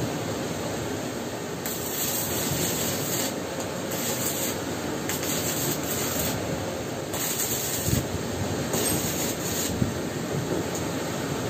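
Stick (shielded metal arc) welding on a steel pipe fitting: the electrode arc crackles and hisses in several runs of about a second each, with short breaks between them, over a steady background noise.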